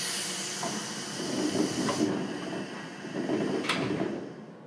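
Air-operated sliding doors of a JR Kyushu 415 series electric train opening at a station stop: a loud hiss of released air that fades about two seconds in, then rumbling and a sharp knock near the end.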